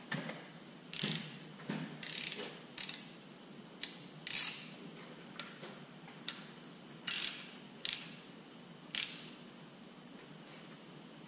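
Hand socket ratchet clicking in about a dozen short strokes, sharp and metallic, then stopping about nine seconds in.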